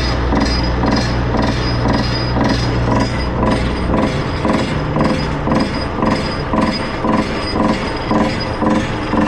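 APE vibratory pile hammer running on a pile during extraction: a steady low mechanical drone with a regular knocking about two to three times a second. The low drone shifts about four seconds in.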